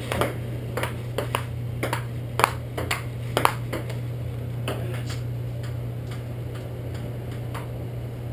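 Ping-pong ball clicking off paddles and the table in a rally, about two hits a second for the first four seconds, then a few scattered hits. A steady low hum runs underneath.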